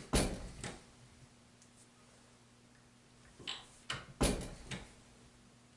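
Red single-stage reloading press being cycled, with sharp metal clacks from the ram and handle linkage in two short bursts, just after the start and again around four seconds in, as a bullet is seated into a .223 case in small increments.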